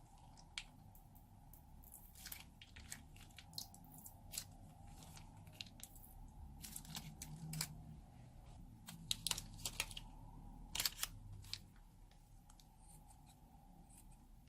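Slime being squeezed and worked by hand, giving off irregular sharp crackles and pops, with a quick cluster of louder pops about nine to eleven seconds in.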